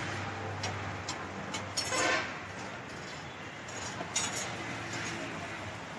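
Roadside street-food stall ambience: steady traffic noise and a low hum, with scattered metal clinks and a brief louder rush about two seconds in.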